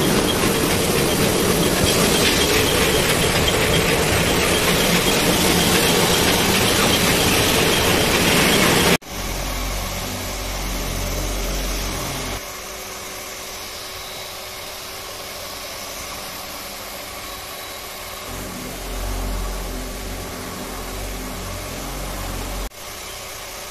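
Yarn reeling machine winding skeins, running with a loud, steady machine noise. About nine seconds in the noise cuts off suddenly to a much quieter low hum.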